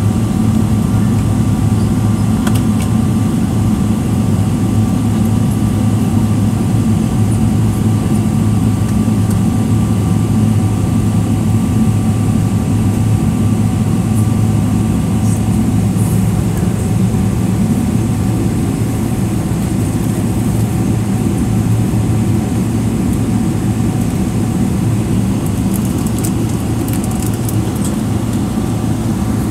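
Steady cabin hum inside a Boeing 777-300ER on the ground: a constant rush of air over a low drone, with a couple of thin steady whining tones above it.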